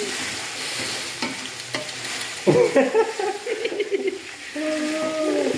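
Cooked beef pieces sizzling as they fry with browned onions and garlic in a metal cooking pot, stirred and scraped with a wooden spoon. From about halfway a louder pitched vocal sound comes in over the sizzle.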